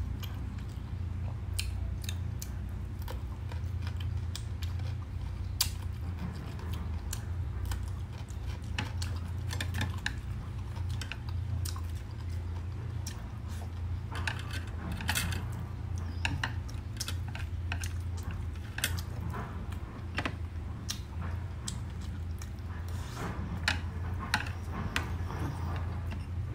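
Close-up eating sounds: chewing and crunching of roast pork, with chopsticks and a metal spoon clicking and tapping against a ceramic plate, in scattered sharp clicks. A steady low hum runs underneath.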